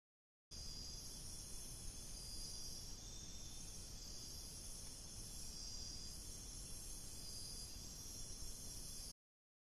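Chorus of night insects in tropical rainforest, steady and high-pitched, several pitches layered at once with some pulsing, over a low hiss from the game camera's microphone. It starts abruptly about half a second in and cuts off near the end.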